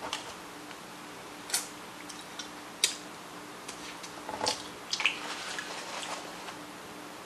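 Close-miked eating of crab meat from a seafood boil: wet mouth sounds and chewing as crab meat is taken off a fork, with a few sharp clicks, the loudest about three seconds in.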